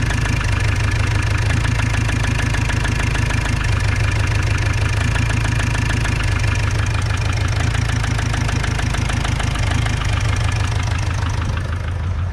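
Opel Vivaro / Renault Trafic 2.0 CDTI four-cylinder diesel idling with a rapid, steady knock. The mechanic traces the knock to a worn piston skirt, the piston slapping in its cylinder.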